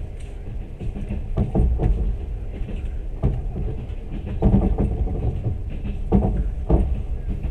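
Passenger train running along the track: a steady low rumble with repeated clacks of the wheels over the rail joints, often two in quick succession.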